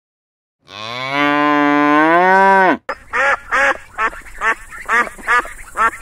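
A cow's single long moo, starting about a second in and rising in pitch. From about three seconds, domestic ducks quack in quick repeated calls, roughly two a second.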